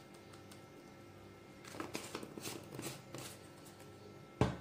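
Light scattered clicks and scrapes of kitchen things being handled around a steel bowl, then a single sharp knock near the end.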